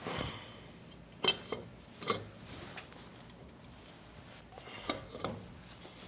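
About five sharp metal clanks with a short ring, the loudest about a second in: steel pipe-weld test straps knocking against a bench vise as they are worked for a nick-break test.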